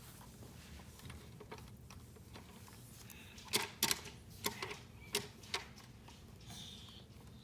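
A burst of sharp clicks and clacks, about seven in two seconds, starting about halfway through: a dog going through a dog door, the flap and its claws knocking.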